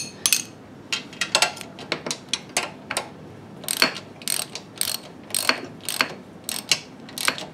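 Socket ratchet clicking in short back-strokes, about two clicks a second, as motor mount bolts are snugged down, not fully tightened.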